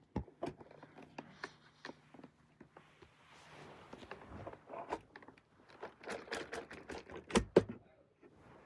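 Plastic clicking, rattling and knocking as a loose button on a UML0 N8 cordless stick vacuum is worked back and forth by hand: the button won't snap shut. Two louder knocks come about seven and a half seconds in.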